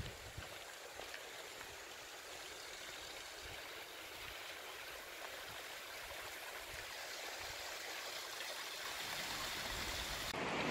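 Small mountain creek running, a steady rushing of water that grows gradually louder.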